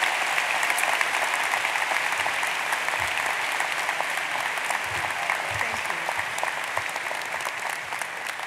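A large audience applauding, a dense, steady mass of clapping that eases off slightly near the end.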